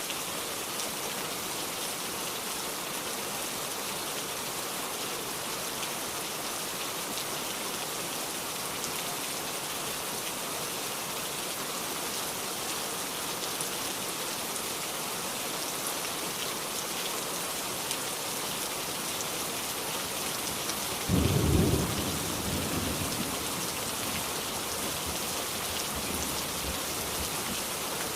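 Heavy rain falling steadily, with a single sudden thunderclap about 21 seconds in that rumbles away over the next few seconds.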